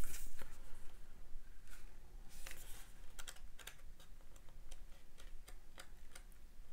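Pages of a paper booklet being flicked through by hand: a string of light, irregular ticks, with a soft swish of paper about two and a half seconds in.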